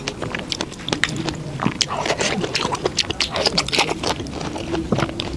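Close-miked eating sounds: a person chewing and biting food, with many quick irregular wet clicks and crunches.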